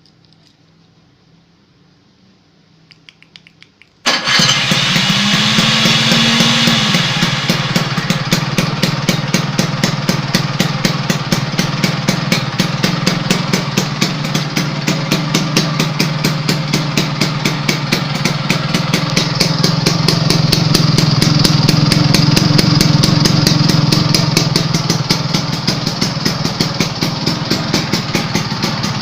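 Vespa scooter's two-stroke single-cylinder engine through an aftermarket racing exhaust. After a few faint clicks it catches abruptly about four seconds in and rises briefly in revs, then runs at idle with a loud, rapid, even popping beat.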